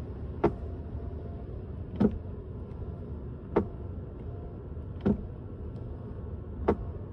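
Power seatback recline motor of an aftermarket racing seat running with a low hum, broken by a sharp clack about every second and a half, five times. The knocking and uneven movement show a faulty recline adjustment mechanism.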